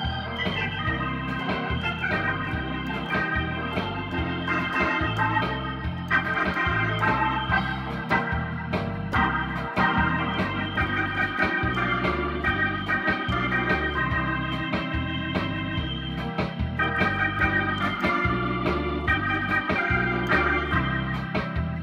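Hammond-style drawbar organ playing a 1950s rock-and-roll melody, with a bass line and a steady drum beat underneath.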